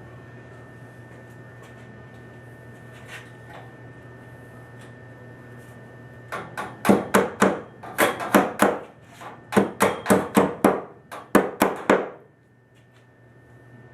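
Hammer driving a copper pipe hook into a wooden joist to hang a copper water line: about twenty sharp blows in four quick groups, starting about six seconds in and stopping about twelve seconds in, over a steady low hum.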